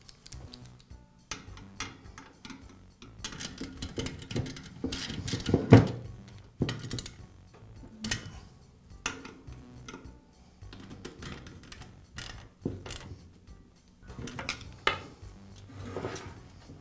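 Metal tools clicking and scraping on the heating element's terminal nuts and the sheet-metal heater housing: a nut driver tightens the nuts while a screwdriver holds the screws. Irregular clicks and taps, loudest just before six seconds in.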